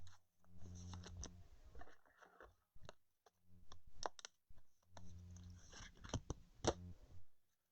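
Faint, irregular clicks and soft rustles of trading cards being handled and flipped through.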